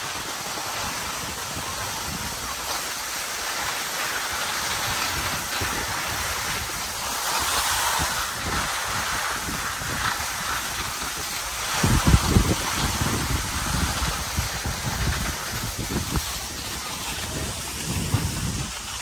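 Skis sliding and scraping over packed snow in a steady hiss, with wind buffeting the microphone in low rumbling gusts, strongest about two-thirds of the way through.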